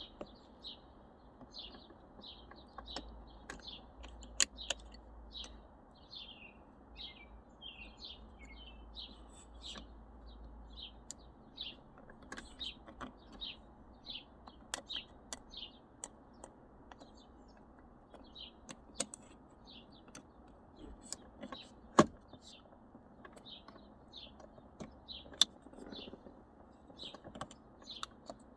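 A small bird chirping over and over, two or three short high chirps a second, with scattered clicks and taps of small plastic shifter parts being handled. The sharpest click comes about two-thirds of the way through.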